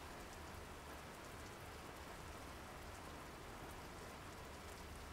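Steady rain falling, fairly faint and even throughout.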